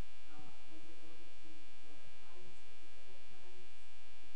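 Steady electrical hum, with a faint voice speaking away from the microphone.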